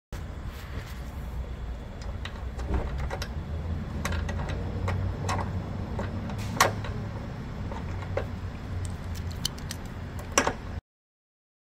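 Irregular metallic clicks, clinks and knocks of a socket wrench, extension and bolt hardware being worked while a light bracket is bolted up under a Jeep, over a steady low hum. The sharpest knock comes a little past halfway, another near the end, and the sound cuts off suddenly.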